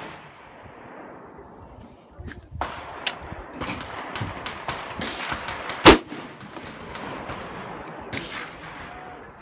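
A single loud rifle shot about six seconds in, with several fainter sharp cracks from other guns firing at the range around it.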